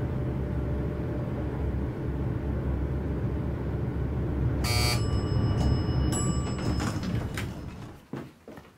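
Elevator car running with a steady low hum. About five seconds in, a bell-like chime rings and its high tones hang on for a couple of seconds, typical of an elevator's arrival chime; the hum fades away near the end.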